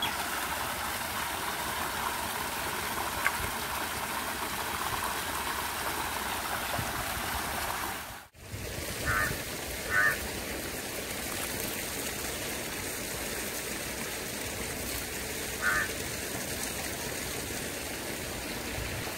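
Steady outdoor background hiss with three short animal calls: two close together about halfway through and one more later.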